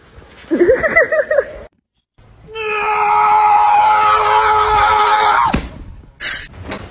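A loud, steady-pitched scream lasting about three seconds that cuts off abruptly. Before it come a few short vocal cries that bend in pitch.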